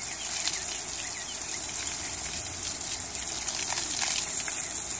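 Garden hose spraying a steady jet of water that splashes onto alpacas' wool and the grass.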